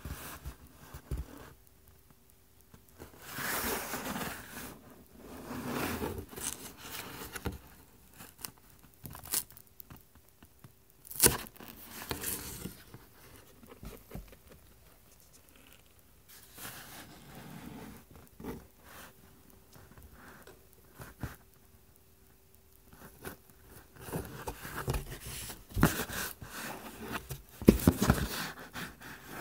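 Cat clawing and biting at the torn edge of a cardboard box: irregular scraping, crinkling and tearing of cardboard in bouts, with a few sharp knocks, the loudest near the end.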